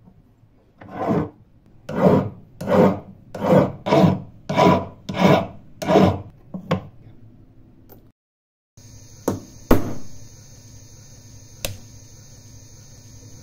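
A hand file rasping across a brass jewellery piece braced on a wooden bench pin, about nine strokes in a row. After a short break comes a faint steady hum and high whine from a jeweller's micromotor control unit, with a few sharp clicks as its switches are pressed.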